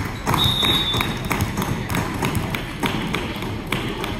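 Irregular claps and thumps, with crowd chatter, ringing in a gymnasium. A brief thin whistle-like tone sounds about half a second in.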